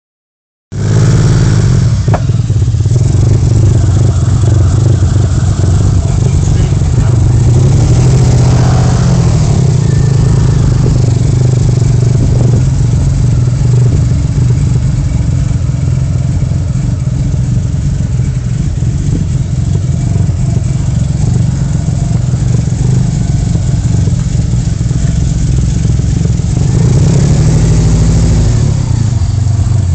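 Vectra V6 engine running with a misfire, rising briefly about eight seconds in and again near the end. The owner thinks the misfire may be in one cylinder or down to fuelling, and expects the engine to need a full recondition.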